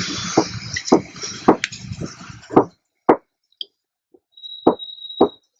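Small clicks and knocks of wires and parts being handled at an electronics workbench, with a hiss over the first two and a half seconds and a brief high steady tone near the end.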